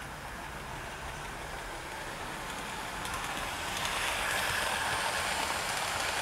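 OO gauge model trains running on a layout: a steady noise of wheels on rail and motor, growing louder about three seconds in as the Hornby Railroad Midland Compound 4-4-0 and its coaches come close.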